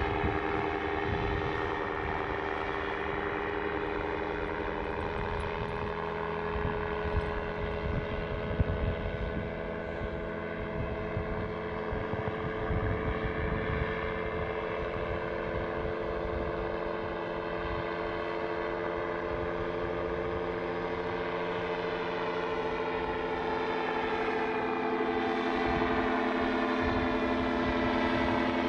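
Ultralight gyrocopter's engine and pusher propeller droning steadily in flight overhead, slowly growing louder; right at the end the engine note drops in pitch and fades.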